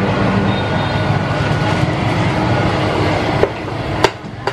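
Loud steady mechanical rumble with a low hum, like a motor running, that drops away near the end, followed by two sharp knocks.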